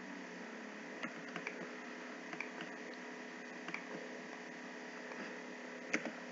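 A handful of short, scattered computer keyboard and mouse clicks over a steady low electrical hum and hiss.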